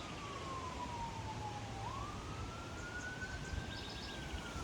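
A siren wailing: one steady tone that slowly falls in pitch, sweeps back up about two seconds in, holds, and starts to fall again near the end.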